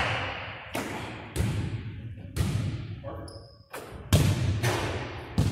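Basketball bouncing and hitting the hardwood gym floor, several hard hits at uneven intervals, each ringing on in the large hall's echo. A short high squeak comes a little after three seconds in.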